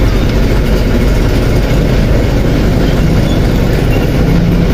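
Steady low rumble of motor vehicle engines from the street, running without letup.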